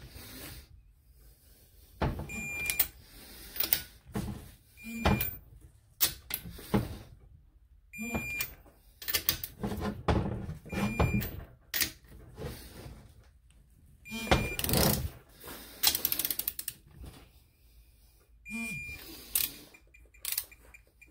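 A torque wrench ratcheting and clicking in short separate bursts, one bolt after another, as the bolts of an ADA girdled cylinder head are tightened on a first pass to 20 foot-pounds.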